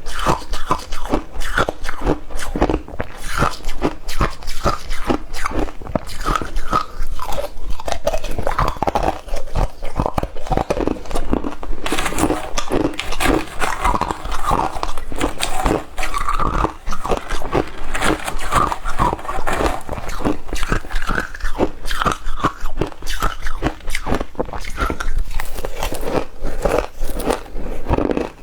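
Ice being bitten and chewed, a dense run of loud crunching and crackling.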